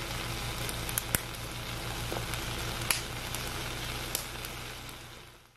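Pork steaks sizzling steadily on a hot griddle, with a steady low hum underneath and a few light clicks; the sizzle fades out near the end.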